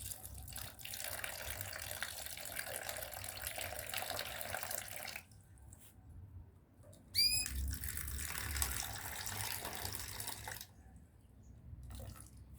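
Water running into a small bathing tub in two spells, about five seconds and then about three seconds, as more water is added for the birds' bath. Just before the second spell comes one short high chirp.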